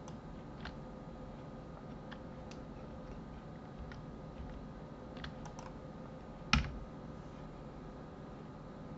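Sparse computer keyboard keystrokes and mouse clicks, a single click every second or so over a faint steady hum. About six and a half seconds in comes one much louder knock with a low thump.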